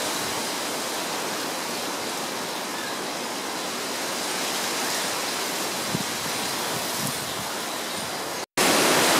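Wind buffeting the microphone, a steady rushing noise that cuts out for a moment near the end and comes back louder.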